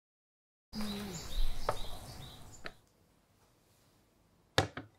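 Sound cuts in a little under a second in: a short stretch of outdoor ambience with a low falling tone and a few quick bird chirps, fading out after about two seconds. Near the end, two sharp clicks close together.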